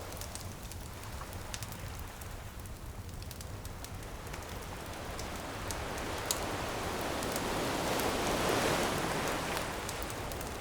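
Campfire crackling with scattered sharp pops over a steady wash of surf; a wave swells and breaks about seven to nine seconds in, then eases off.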